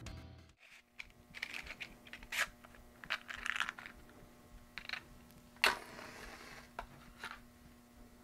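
Small clicks, taps and rustles of things being handled at a Buddhist home altar, then a louder, sharper strike about five and a half seconds in as a small flame is lit for the altar candles. A faint steady hum runs underneath.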